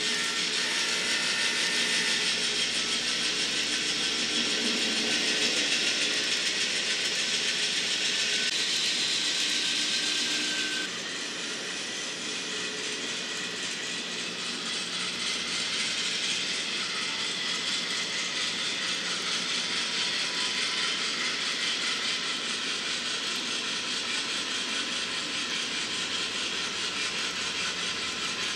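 N-scale model diesel locomotives running: a steady mechanical drone with hiss. The sound changes abruptly about eleven seconds in, becoming a little quieter and losing its deepest rumble.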